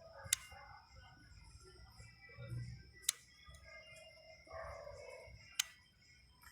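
Three sharp clicks, about two and a half seconds apart, over a faint steady high-pitched tone.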